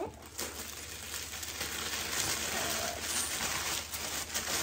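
Tissue paper rustling and crinkling as it is lifted and pulled out of a cardboard gift box, a steady crackle of many small clicks.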